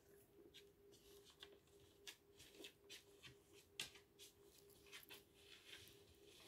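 Near silence: room tone with a faint steady hum and scattered faint clicks and rustles of handling, likely from the nitrile-gloved hand and the phone.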